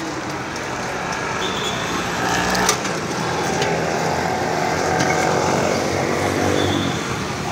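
A motor vehicle's engine hum swells for a few seconds and fades as it passes, over steady street noise, while a plastic bag crinkles close by with a few sharp crackles.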